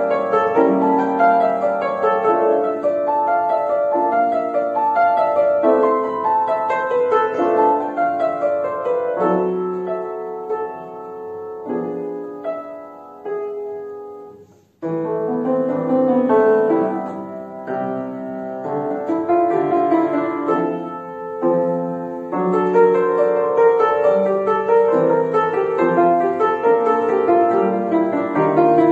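Grand piano played solo, a classical piece in sustained chords and melody; about halfway through the playing grows quieter and stops for a moment, then starts again louder and fuller.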